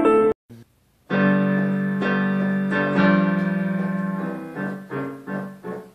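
Background piano music. It cuts off shortly after the start, and after a brief silence a new passage begins with held chords that turn into short, repeated notes.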